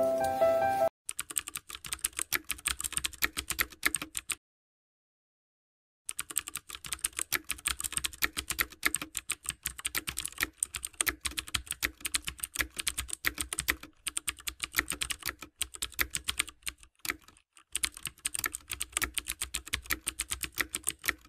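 Rapid keyboard typing clicks in long runs, broken by a silent pause of about a second and a half after the first few seconds. The last of a piano piece fades out in the first second.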